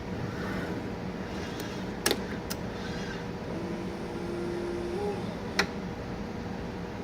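Biotage Initiator+ microwave synthesizer and Robot Sixty autosampler running with a steady fan hum. Sharp clicks come at about two seconds, just after, and again at about five and a half seconds, and a brief steady motor tone lasts about a second and a half, stepping up slightly as it ends.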